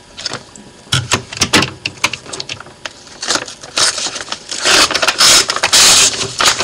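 Mailing package being torn open by hand: the packaging crackles and rustles, with scattered crackles at first and louder, continuous crinkling and tearing from about two-thirds through.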